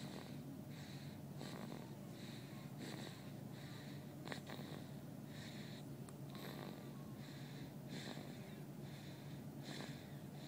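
A young girl snoring loudly in her sleep, in quick, even, noisy breaths, with a single sharp click about four seconds in.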